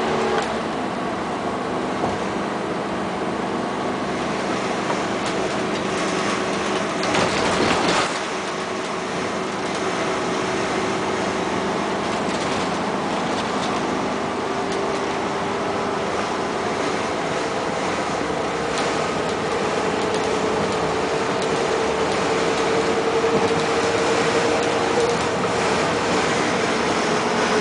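Motorhome driving at highway speed, heard from inside the cab: steady road and engine noise with a faint whine that rises slightly in pitch in the second half. A louder rush of about a second comes around seven seconds in.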